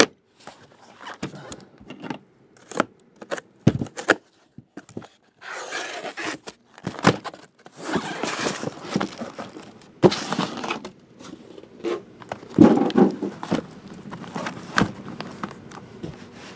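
Shrink-wrapped trading-card hobby boxes being pulled out of a cardboard shipping carton and set down: cardboard and plastic wrap scraping and rustling, with scattered knocks and thuds as boxes are handled and stacked.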